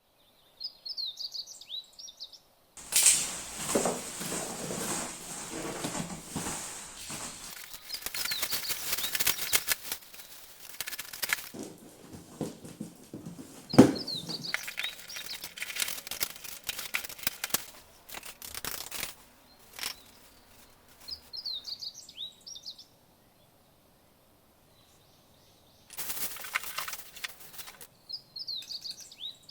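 Packaging rustling and crinkling as an FPV plane kit is unboxed and handled, with small knocks and one sharper knock about midway. Birds chirp briefly in the background at the start, again later, and near the end.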